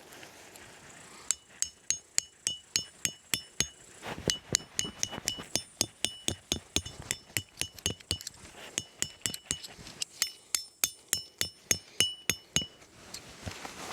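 Metal tent pegs being hammered in: a steady run of sharp, ringing metal-on-metal clinks, about three to four a second, starting about a second in and stopping shortly before the end.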